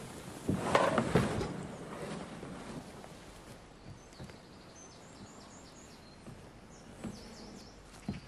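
Canoe hull scraping and knocking as it is hauled out of the water onto a grassy bank, loudest about a second in. Later a bird chirps in short runs, and there are a couple of light knocks near the end.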